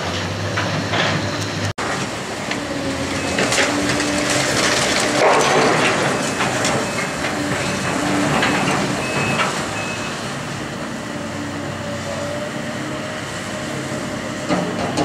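Link-Belt excavator demolishing a building: its diesel engine running under a continuous din of crunching, clanking debris and scraping metal, with a few short high squeaks about halfway through. The sound cuts out for an instant near the start.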